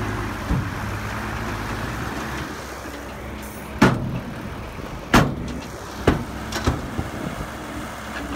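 Dump truck engine running steadily with its bed raised to tip the load, with a few sharp knocks about halfway through.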